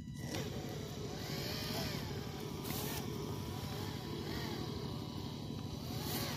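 Small RC tractor's motor and gearbox whining steadily, the pitch rising and falling in repeated swells as the machine drags a cultivator through soil.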